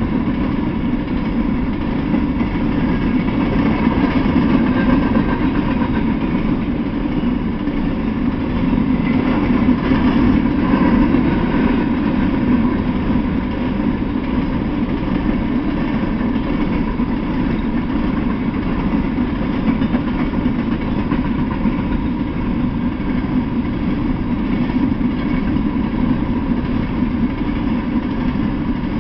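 Freight train of open-top coal hopper cars rolling past: a steady, continuous low rumble of wheels on the rails.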